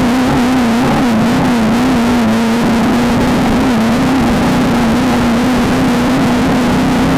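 Engine of a Volkswagen Beetle desert race car running hard at fairly steady high revs, its pitch wavering slightly, heard on board over heavy road and wind noise while racing across rough ground.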